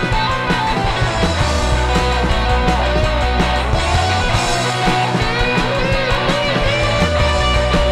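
Outro music: rock with electric guitar, bass and a steady beat.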